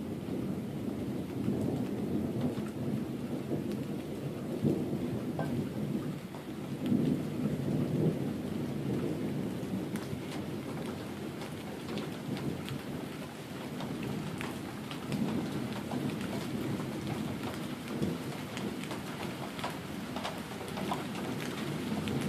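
Rain falling during a thunderstorm, with drops ticking sharply close by, more often in the second half, over a low, continuous rumble of distant thunder that swells and fades several times.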